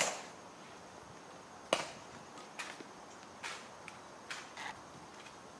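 Ceremonial guards' metal-tapped shoes clicking on the stone plaza: a sharp heel click at the start and another about two seconds in, then lighter, evenly paced steps about a second apart.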